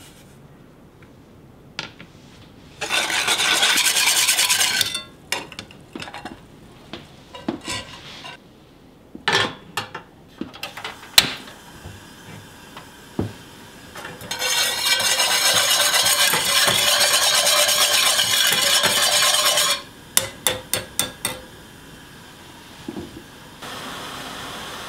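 A utensil stirring liquid in a hammered aluminium saucepan, scraping against the metal in two long spells, with scattered clinks. A sharp click near the middle as a portable gas stove is lit, then a quick run of about five taps on the pan, and near the end a steady hiss from the burner and the heating liquid.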